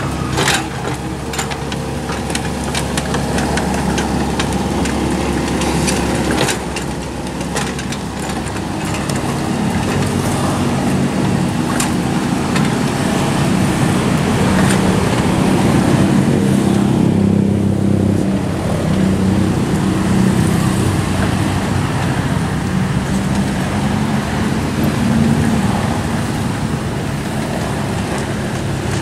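Komatsu PC75UU mini excavator's diesel engine running under load as the machine pushes and levels gravel, the engine note swelling in the middle and easing off near the end. Sharp clicks and knocks of stones sound in the first several seconds.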